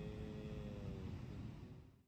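Faint beach ambience: a steady low rumble of wind and surf, with a faint distant voice-like tone in the first second. It fades out to silence near the end.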